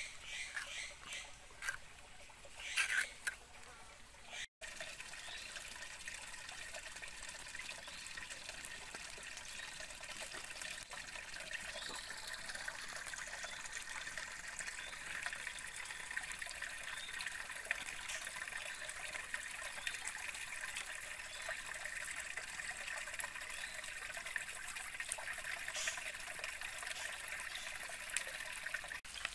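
Steady trickling and rushing of a shallow forest stream, with a few light knocks of handling in the first seconds and an abrupt cut about four and a half seconds in.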